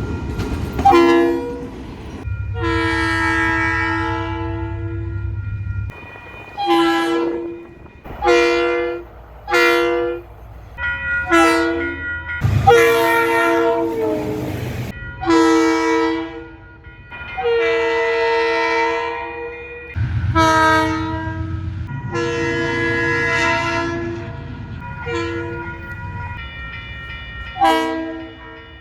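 Diesel locomotive horns sounding one after another, each a set of several tones blown together: many short toots and several long held blasts of a few seconds. A locomotive engine rumbles low beneath some of the long blasts.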